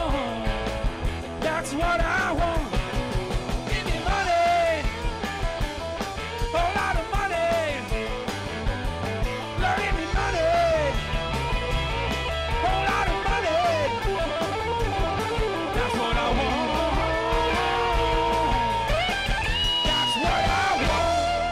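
Live rock band playing an instrumental section on electric guitars, bass and drum kit, with a lead electric guitar line of bent notes over the rhythm. The band stops together near the end, leaving a ringing chord.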